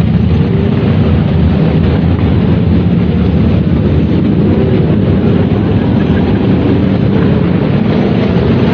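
A column of motorcycles riding past close by, their engines merging into one loud, steady drone.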